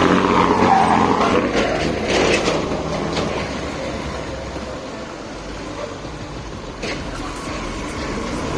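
Vehicle in motion: a steady rumble and hiss of travel noise, loudest in the first few seconds and easing off, with a few short knocks or rattles about one and a half to three seconds in and again near seven seconds.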